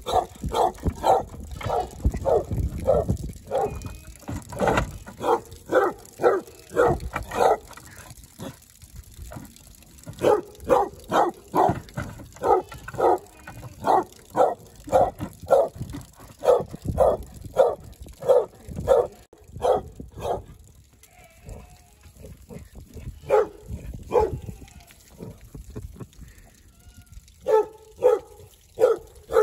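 A dog barking over and over in long runs of short barks, about two a second, with two pauses, while playing.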